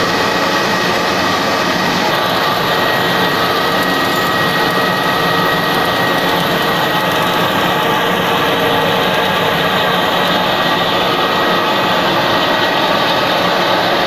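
Aluminum rod extrusion line running: a steady, loud machine noise with a high whine held at one pitch.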